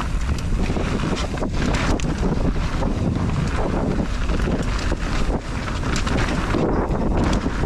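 Wind buffeting a GoPro's microphone while riding a mountain bike down a trail, with a steady low rumble from the tyres on the dirt and frequent knocks and rattles from the bike over rough ground.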